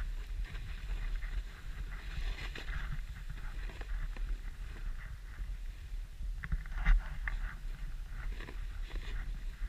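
Swishing and scraping of sliding downhill through powder snow, over a steady low rumble of wind on the microphone, with a sharper knock about seven seconds in.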